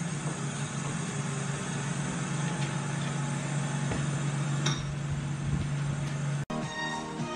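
Steady mechanical hum with a hiss, as from a running household appliance or fan, with a couple of light clinks. About six and a half seconds in it cuts off and music begins.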